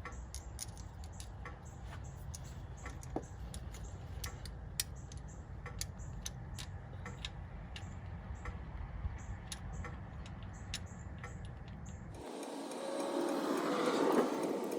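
Light, irregular metallic clicks and taps of hand tools and fuel-line fittings being handled on a Detroit DD15 diesel engine, over a steady low hum. About twelve seconds in the hum stops and a louder rushing noise swells up.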